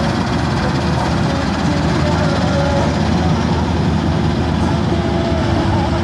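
New Hind 999 combine harvester running steadily, its engine and machinery making a loud, continuous rumble.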